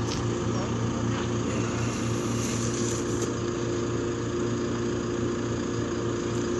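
A motor running steadily: an even, unchanging low drone.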